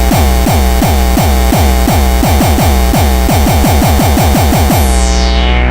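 Hardcore electronic music: a distorted kick drum pounding about four times a second under a dense, noisy synth layer. Near the end the high end sweeps down and the kicks give way to a held low drone.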